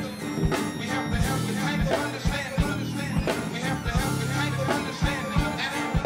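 Live band music: a kick drum hits repeatedly under held bass notes, with keyboard and electric bass playing over a drum kit.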